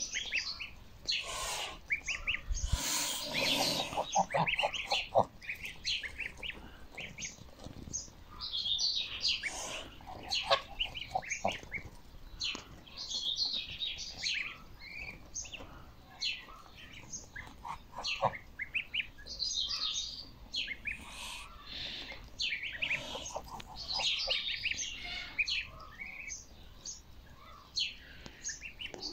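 Goslings peeping in a constant chorus of short high chirps while they feed, with a few lower calls mixed in, most clearly a few seconds in.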